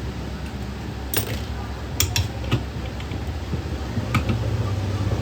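A few sharp metallic clicks and clinks of tools and motorcycle front-fork parts being handled during a shock absorber repair, over a steady low hum.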